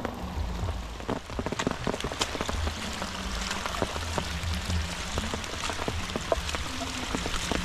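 Steady rain falling on grass and a muddy dirt path, with many sharp drop taps close by.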